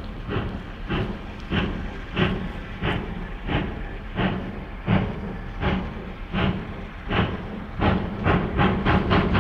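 GWR Castle class four-cylinder steam locomotive 7029 'Clun Castle' working hard on a train, its chimney giving sharp, regular exhaust beats, about one and a half a second, that come faster and closer together near the end.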